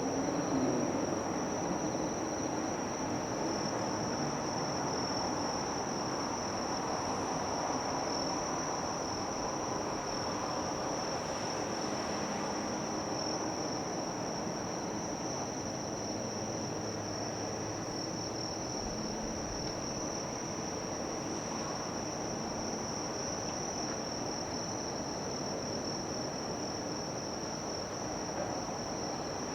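Insects, crickets or cicadas, keeping up one steady, unbroken high-pitched drone over a low, even background noise.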